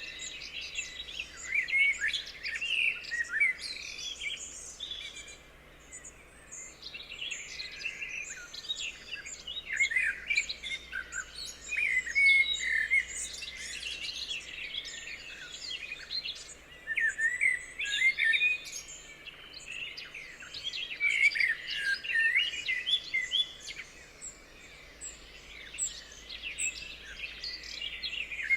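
Several songbirds singing and chirping at once, in overlapping clusters of quick high notes and short sweeping calls, with brief lulls between the busier stretches.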